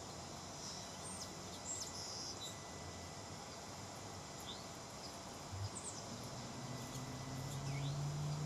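Outdoor ambience with a steady high drone of insects and a few scattered short, high chirps from small birds. A low hum builds near the end.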